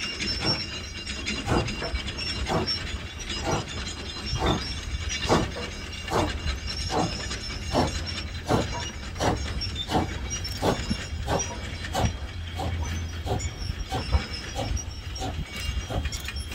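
Steam locomotive exhaust chuffing as the engine works a train, the beats quickening from about one a second to about one and a half a second, over a steady low rumble.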